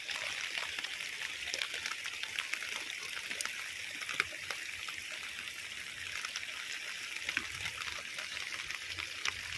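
Heavy rain falling steadily on wet rocks and river water, with many separate drops ticking close by.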